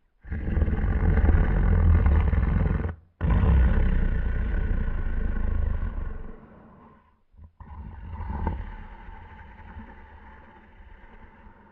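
Battery-powered snoring beetle toy playing its snore sound on nearly dead batteries, rough and distorted. A long, loud snore breaks off for a moment about three seconds in, then resumes and dies away. After a short gap a quieter second snore swells and fades out.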